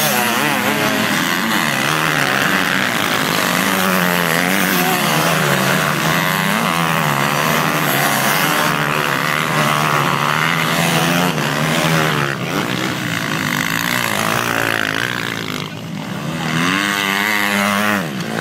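Several motocross bikes' engines revving as they ride through a dirt corner, overlapping, each pitch rising and falling with the throttle. The sound dips briefly about three-quarters of the way through, then swells again as another bike comes through.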